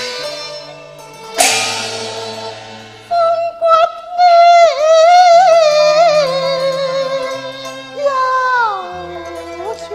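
Cantonese opera music: a cymbal-like crash about a second and a half in, then a high sung line with vibrato, held long and sliding down near the end, over steady low accompaniment notes.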